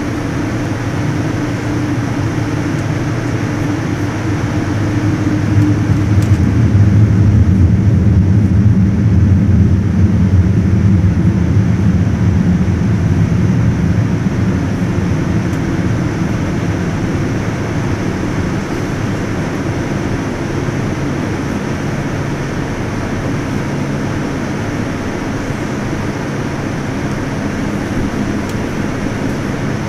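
Cabin noise inside a taxiing Boeing 787-9: a steady low rumble of the GEnx engines and the jet rolling on the taxiway. It swells louder for several seconds a few seconds in, then eases back.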